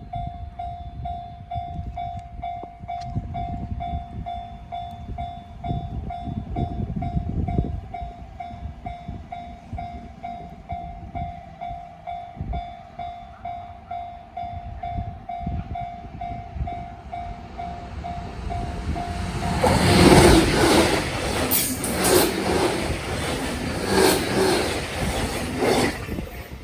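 Level crossing warning bell ringing in a steady, evenly pulsing electronic tone over a low rumble as a train approaches. About twenty seconds in, a JR Kyushu 813 series nine-car rapid electric train passes at speed: a loud rush of running noise with repeated sharp clacks of wheels over the rail joints.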